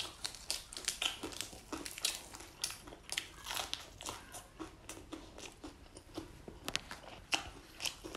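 Close-up chewing and crunching of a lettuce-wrapped bite of salt-and-chili grilled crocodile with crisp skin: a steady run of irregular crackles.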